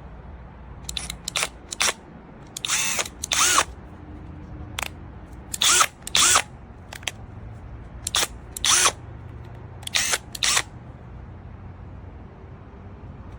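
12V cordless drill motor spun in short trigger blips, about five pairs of brief whirs, each rising and falling in pitch.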